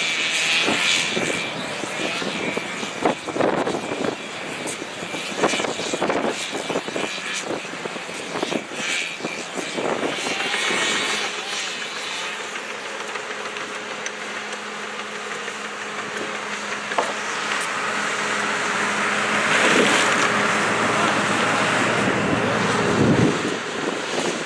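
Two-stroke chainsaw running and cutting into a tree stump, its sound rising and falling unevenly, for about the first ten seconds. Then a diesel excavator's engine runs with a steady hum.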